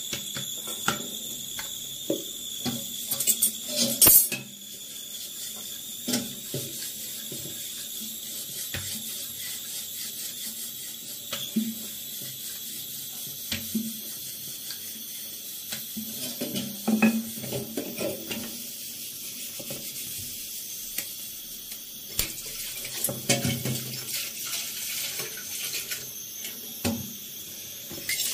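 Kitchen handling sounds while making chapatis: a run of quick slaps as the rolled dough is patted between the palms, loudest about four seconds in. Then scattered knocks and clinks of utensils on the stove, over a steady hiss.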